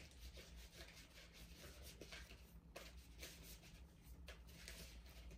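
Faint rustling and soft scattered taps of cards being handled and drawn from a deck of affirmation cards.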